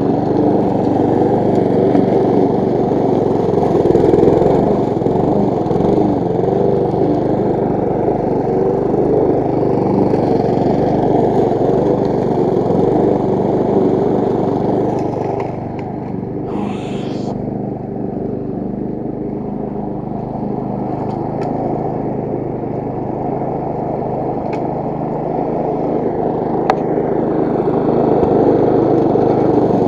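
Petrol push mower's Briggs & Stratton engine running steadily as the mower is pushed across the lawn, a little quieter for a few seconds about halfway through, with a couple of sharp ticks later on.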